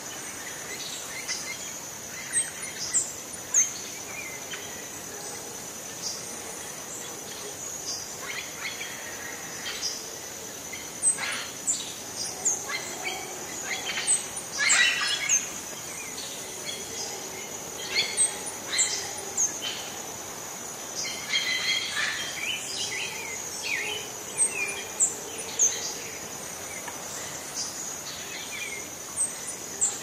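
Tropical rainforest ambience: many birds calling and chirping, including short, quick falling whistles, over a steady high-pitched insect drone.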